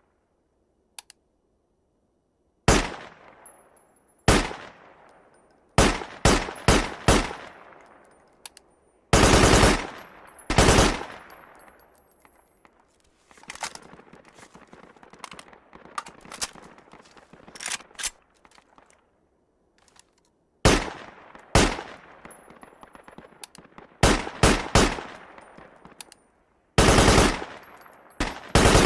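AKS-74U assault rifle firing, in single shots and quick groups of shots along with two longer automatic bursts, one about nine seconds in and one near the end. Each shot leaves a long echoing tail.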